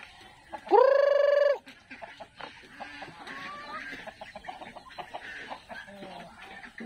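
A rooster crows once, briefly, about a second in: a single call that rises and then holds one pitch. Afterwards chickens cluck quietly among light scratching and clicking sounds.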